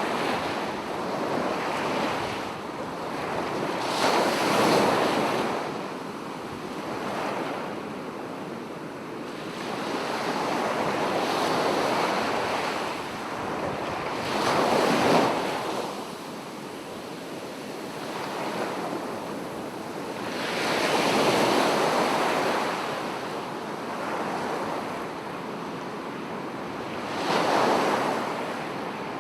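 Small sea waves lapping on a shore, each swelling and washing back every few seconds, with a light breeze.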